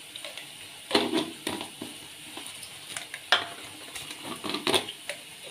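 Irregular sharp clicks and knocks of a plastic spice jar and its plastic scoop being handled over a small steel bowl and set down on the counter as turmeric is spooned out.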